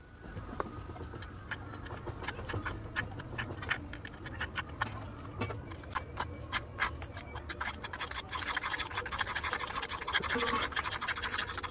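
Small metal spoon scraping and clicking against a miniature terracotta bowl as crushed biscuit and milk are stirred into a batter: quick irregular clicks, turning into denser, more continuous scraping in the last few seconds.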